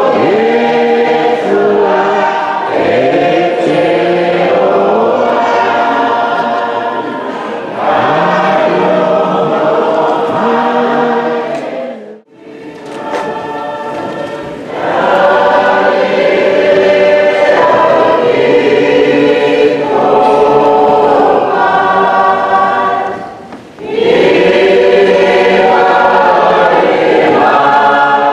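Church choir singing a hymn in full voice, many voices in harmony, with brief breaks between phrases about twelve seconds in and again about twenty-four seconds in.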